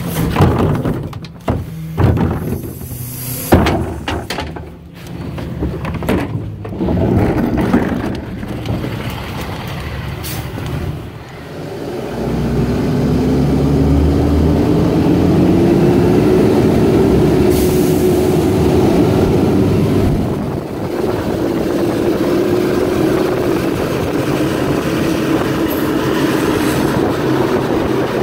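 Knocks and clatter as a wheeled trash cart is emptied into the hopper of a Freightliner M2 rear-loader garbage truck. After about twelve seconds the truck's diesel engine pulls away, its pitch rising for several seconds and then holding steady, with tyres hissing on the wet road.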